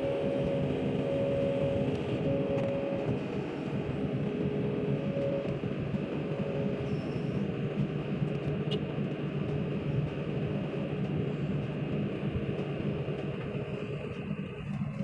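Hydraulic excavator's diesel engine running steadily, with a hydraulic whine that comes and goes in the first half as the boom holds and shifts a heavy steel frame.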